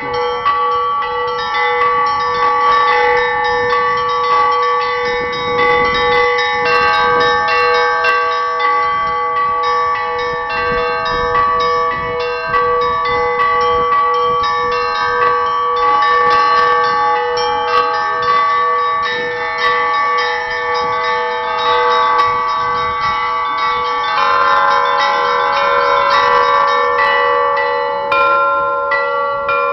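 A set of church bells rung in the Russian manner (zvon): rapid strikes on the small bells over the steady ringing of the larger ones, a dense unbroken peal whose pattern changes a little past three-quarters of the way through.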